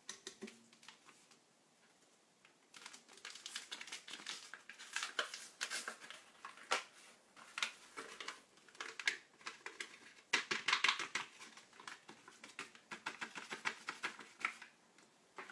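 Paper packet of vanilla pudding powder crinkling and being tapped and shaken out over a stainless steel mixer bowl: quick clicks and rustles in spells, with a brief lull about a second in.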